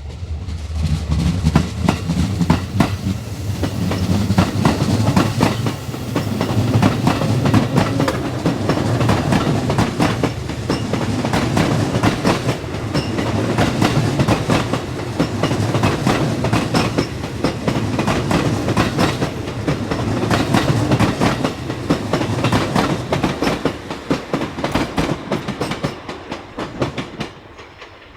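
Electric multiple-unit train running past, wheels clattering rhythmically over rail joints under a steady low rumble. The sound fades away near the end.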